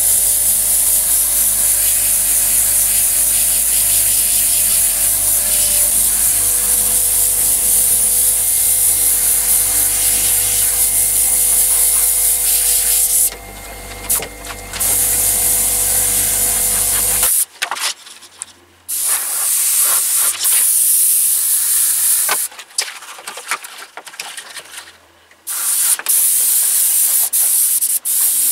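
Airbrush spraying paint: a steady high hiss of compressed air through the gun, broken off briefly several times as the trigger is let go, most often in the last third. A low steady hum lies under it for the first two-thirds, then stops suddenly.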